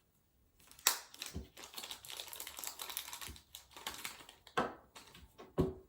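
Hands handling a small package of speed-cube lube: irregular light plastic clicks and taps with faint rustling, with a sharp click about a second in and two more near the end.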